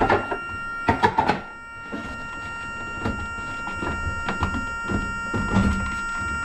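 Knocks and clunks from handling at the lifeboat's helm console, loudest in a quick cluster about a second in, then lighter scattered clicks. A steady high tone sounds throughout.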